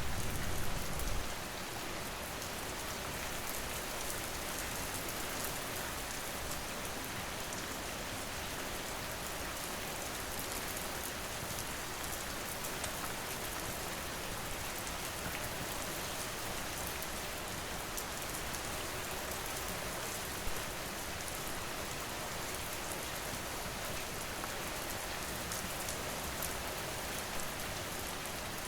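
Steady rain falling on surfaces. A low rumble fades out a little over a second in, and one sharp tick stands out about twenty seconds in.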